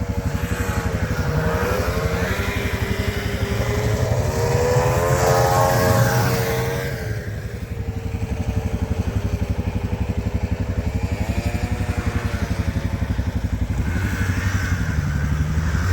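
Snowmobile engines revving and changing pitch as sleds ride past: the loudest about four to six seconds in, fading away at about seven seconds, with another coming up near the end. A steady low engine pulse runs underneath.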